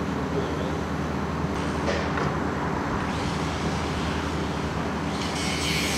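An engine running steadily with a low, even hum. A loud hiss comes in about five seconds in and carries on.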